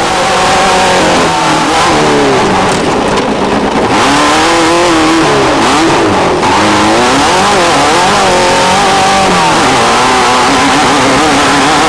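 Off-road desert race vehicle's engine running hard, its pitch rising and falling over and over as the throttle is worked.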